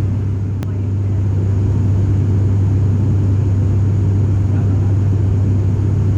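ATR 72 turboprop cabin noise in flight: the propellers' steady low drone, one constant low tone over a rumble. There is one faint tick about half a second in.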